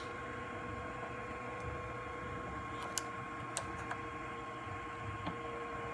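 Faint steady hum with a high and a lower steady tone, and a few light clicks, the sharpest about three seconds in, as a progesterone test strip cartridge is handled and pushed into the slot of a Canine P4 progesterone analyzer.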